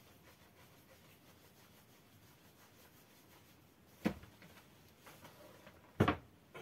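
Faint rubbing of bread dough being rolled between the hands, then two soft thumps about two seconds apart as dough balls are set down and pressed onto a flour-dusted cloth, the second thump the louder.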